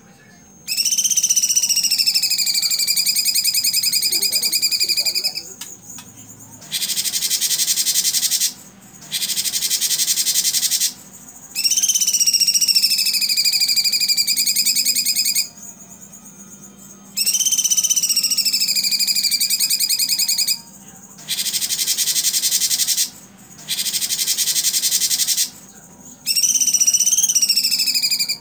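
A cucak cungkok singing loudly in repeated cycles: long whistled phrases about four seconds each that slide down and back up in pitch, alternating with pairs of dense, very fast rattling trills about two seconds long (its 'tembakan' bursts), with short pauses between.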